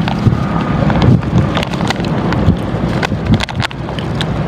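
Wind buffeting the microphone, a steady low rumble, with a few short light clicks scattered through it.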